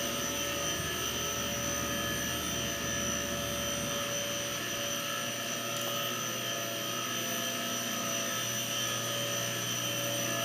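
A steady mechanical drone, like a motor or fan running, with several high, unchanging whining tones over it. A low rumble underneath drops away about four seconds in.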